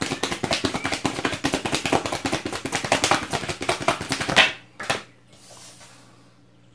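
A deck of tarot cards being shuffled by hand: a rapid, dense patter of cards clicking against each other for about four and a half seconds, ending in two sharper slaps.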